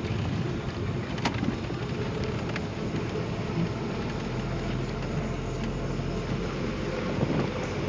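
Steady road and engine noise of a car heard from inside the moving cabin, with a sharp click about a second in.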